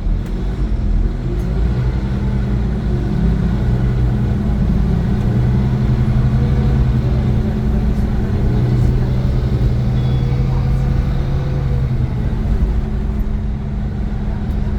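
Iveco Crossway LE 12 bus's Cursor 9 six-cylinder diesel engine running under load as the bus drives, a steady low hum that builds over the first second or two and then holds.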